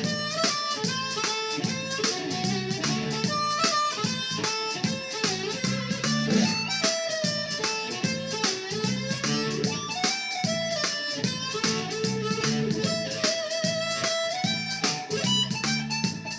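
Amplified blues harmonica played cupped against a corded handheld microphone, with bending and wavering notes. It plays over a steady backing groove with a repeating bass line and an even beat.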